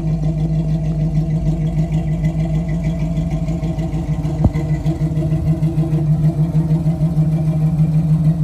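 A 1981 Chevrolet Camaro's engine running at a steady idle, with one sharp click about halfway through.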